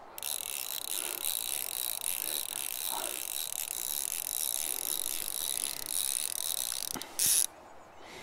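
Fly reel's ratchet buzzing steadily as line runs through it while a hooked trout is being played. A brief louder burst comes near the end before it goes quieter.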